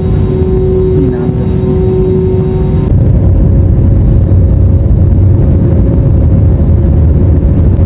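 Cabin noise of an Airbus A320-family twin-jet airliner taxiing: a steady low rumble of the engines and undercarriage. A steady hum over it stops about three seconds in, and the rumble grows slightly louder from there.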